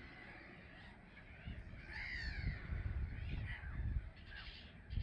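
Gulls calling, a few short arched cries, over a low rumble.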